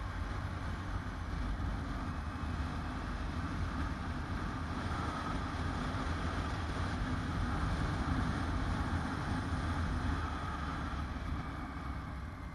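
Touring motorcycle riding at road speed: a steady engine rumble mixed with wind rushing over the bike-mounted camera's microphone. It grows a little louder towards the middle and eases off near the end.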